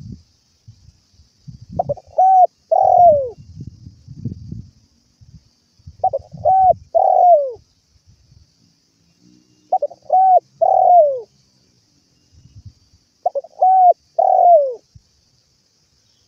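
Spotted dove cooing: four phrases about four seconds apart, each two short notes followed by a longer coo that falls in pitch.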